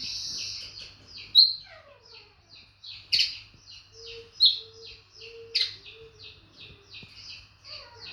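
Eurasian linnet chirping: a steady run of short high chirps, about three or four a second, a few of them much louder, with a falling whistle about a second and a half in and a row of short low notes near the middle.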